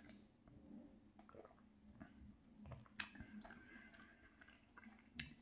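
Faint chewing and sipping of gumbo broth from a glass bowl, with a sharp click about three seconds in and another near the end.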